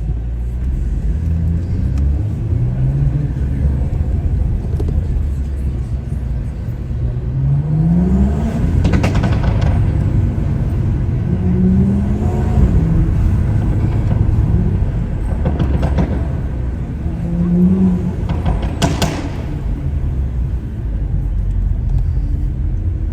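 Tuned turbocharged BMW pulling hard several times, engine pitch climbing with each pull. Sharp exhaust pops and crackles come in a few bursts between the pulls.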